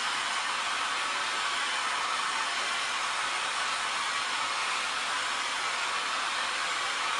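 Small hand-held hair dryer blowing steadily: an even rushing hiss with a faint steady hum underneath.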